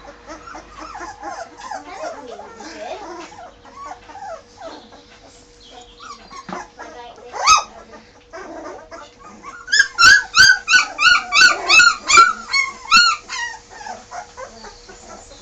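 Bergamasco sheepdog puppies whimpering and yipping in short high calls. About ten seconds in comes a quick run of loud, high yaps, about four a second, lasting some three seconds.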